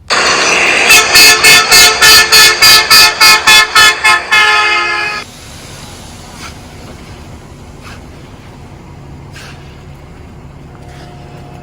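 A horn sounding in a rapid series of about a dozen short, loud blasts, then one held blast that cuts off suddenly about five seconds in. After that only a faint steady engine hum remains.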